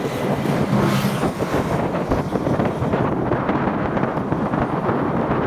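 Wind and road noise from riding along a road in a moving vehicle: a steady rush, with a brighter hiss about a second in that thins out after about three seconds.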